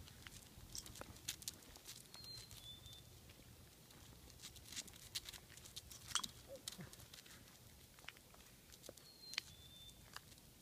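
Soft scattered taps of footsteps and a puppy's paws on an asphalt lane. Twice, a bird whistles a short two-note call, high then lower.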